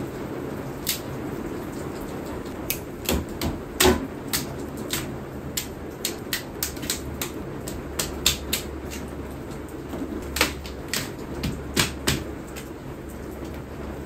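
Dead sticks being snapped by hand: a string of sharp, irregular cracks, the loudest about four seconds in, over a steady hiss of rain. The crisp snap shows the wood is dead and dry inside, though wet on the surface.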